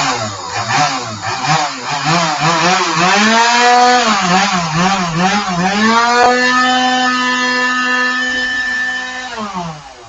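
Chainsaw engine revving in repeated rises and falls, then held at high speed for a few seconds before it winds down near the end.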